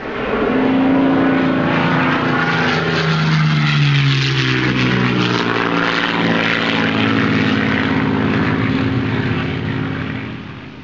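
Propeller aircraft passing by, its engine drone dropping in pitch as it goes past about three to four seconds in, then fading out near the end.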